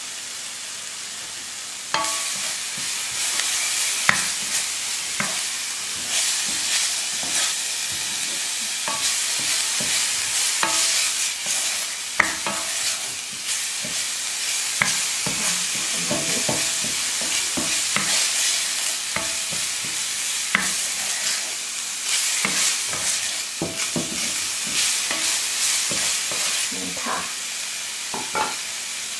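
Diced bacon and onion sizzling in a frying pan, stirred and scraped around with a wooden spatula, with many short scraping clicks. The sizzle grows louder about two seconds in as the stirring starts.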